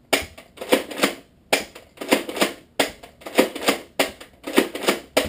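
Nerf Vortex Pyragon disc blaster being slam-fired: the trigger is held while the priming handle is pumped, so each stroke clacks and launches a disc. The clattering strokes and shots repeat about one and a half times a second.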